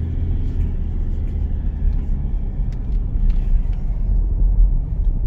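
A moving car's steady low rumble of engine and road noise.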